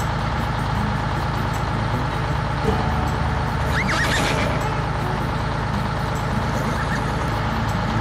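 Truck engine running steadily, with a horse whinnying briefly about four seconds in.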